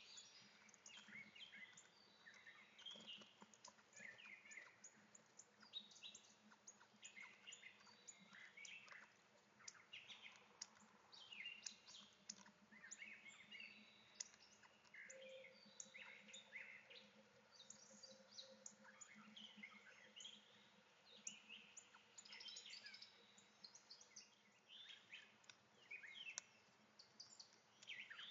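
Several birds chirping and singing at once, a steady stream of short, high calls and trills, faint and distant, over a soft low hum.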